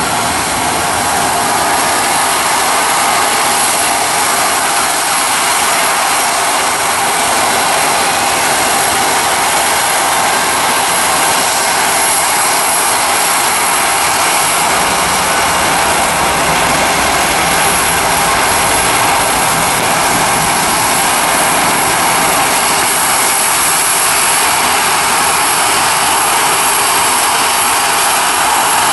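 Jet engines of an Airbus A320 at takeoff thrust during its takeoff roll: a loud, steady rushing noise with a thin high whine.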